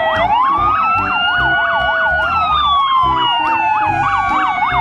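Police sirens sounding together: one in a fast yelp, about three rises and falls a second, over another in a slow wail that climbs shortly after the start and then falls steadily from about two seconds in.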